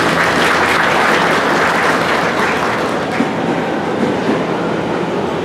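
Audience applauding, the clapping fading away over a few seconds.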